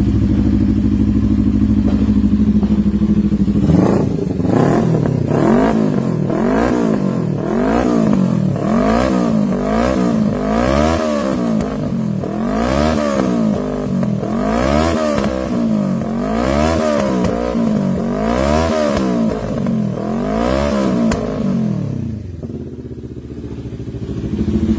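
CFMoto NK400 parallel-twin motorcycle engine through an SC Project aftermarket exhaust: it idles, then is blipped repeatedly, about one rev a second, with crackling pops from the exhaust as the revs drop, before settling back to idle near the end.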